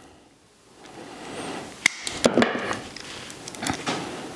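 Pliers snipping off the protruding tips of wood screws in a wooden table saw insert: a few sharp snaps amid handling noise, the loudest about two seconds in.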